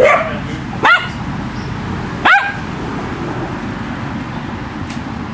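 A dog barking three short times in the first couple of seconds at a push reel lawnmower, over a steady low background noise.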